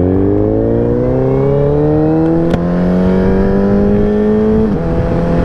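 Sportbike engine pulling under steady acceleration, its pitch rising smoothly for several seconds, then dipping slightly about five seconds in and holding steady at cruising speed, with wind rush over the microphone.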